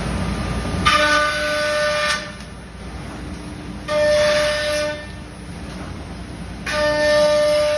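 CNC router spindle cutting into a wooden longboard blank three times, each cut a high whine with several pitches lasting one to two seconds over the machine's steady running noise.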